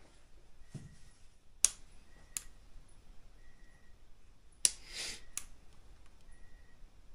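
Two pairs of sharp clicks, each pair about three-quarters of a second apart: a handheld light's switch being pressed on and off, with a short breathy hiss between the second pair. The light is failing to come on.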